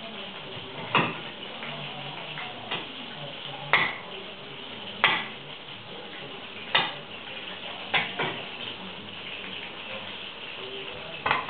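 Kitchen knife chopping onion on a cutting board: about eight sharp knocks at a slow, uneven pace.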